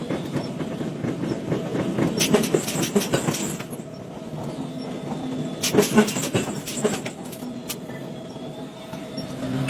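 Factory machinery running with a steady hum, broken by clusters of metal clanks and knocks about two seconds in and again about six seconds in.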